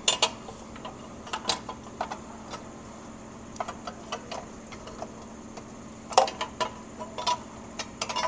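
Irregular metallic clicks, taps and light knocks as a metal oil cooler line assembly is handled and dry-fitted into place, with a louder cluster of knocks about six seconds in.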